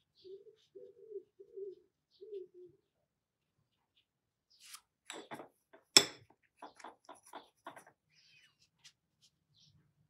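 A pigeon cooing, a few low notes in a row, over the first few seconds. After that comes a run of light clicks and taps from painting materials being handled, the loudest a sharp click about six seconds in.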